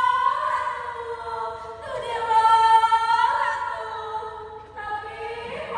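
Unaccompanied high singing in long held notes, in phrases of about two seconds each: one runs on at the start, a new phrase begins about two seconds in, and another begins near the end.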